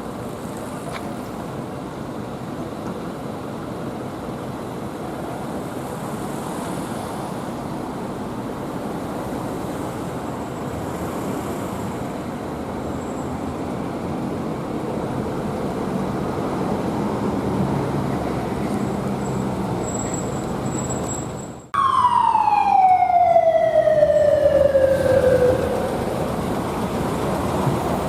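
Road traffic noise, then about three-quarters of the way through a police motorcycle's siren cuts in abruptly at a high pitch and slides steadily down for about four seconds before stopping. The siren is the loudest sound.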